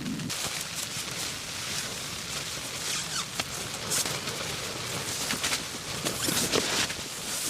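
Rain pattering steadily: a dense hiss of small drops with scattered louder ticks.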